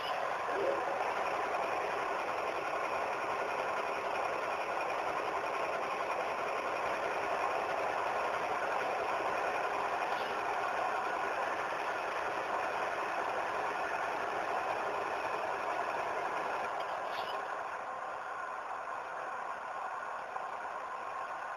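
Model diesel locomotive running slowly along the track, a steady mechanical running noise that eases slightly near the end.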